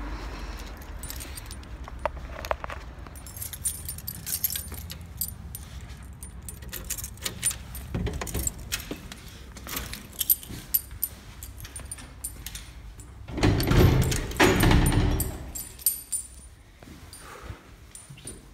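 Keys jangling and clicking, mixed with the rustle of a phone being handled in a pocket. About three-quarters of the way through there is a louder rumbling rustle lasting a couple of seconds.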